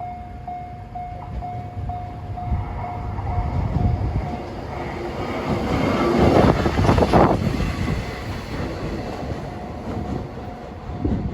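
Level crossing alarm ringing about twice a second as a DD200 diesel-electric locomotive running on its own passes over the crossing. The engine and wheel noise swells to its loudest about six to seven seconds in, covering the alarm, which is heard again near the end.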